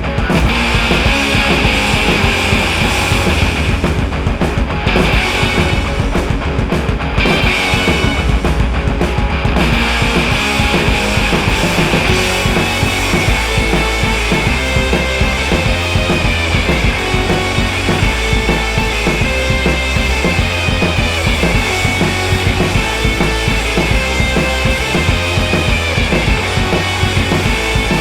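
Loud rock music with a driving drum beat, heavy bass and distorted guitars.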